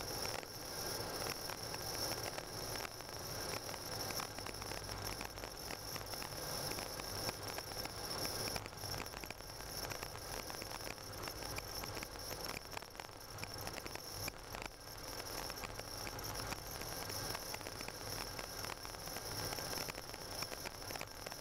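A car driving on a snow-covered road, heard from inside the cabin: a steady hiss and low rumble with a continual fine crackle of the tyres on packed snow.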